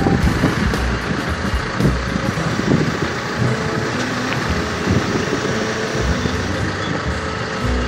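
JCB telehandler's diesel engine running steadily while it holds a sailboat suspended in slings.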